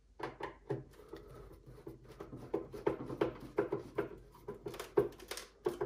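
Screwdriver turning a VESA mount screw into the back of a monitor by hand: a run of small, irregular clicks and ticks with faint rubbing as the screw is tightened.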